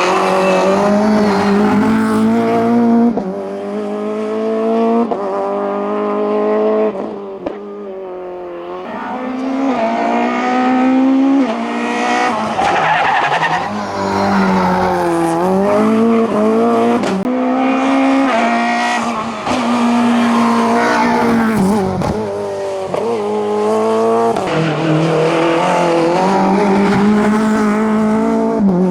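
Racing car engine at full throttle on a hillclimb, revving high through the gears. The pitch climbs and drops sharply again and again as the driver shifts and lifts for corners.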